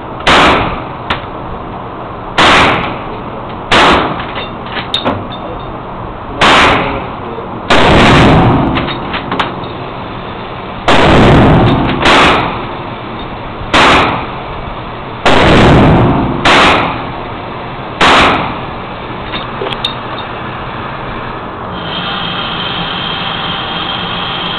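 Gunshots fired one at a time in an indoor concrete range, about eleven shots a second or two apart, each with a sharp crack and a booming echo. Near the end a steady mechanical whir starts.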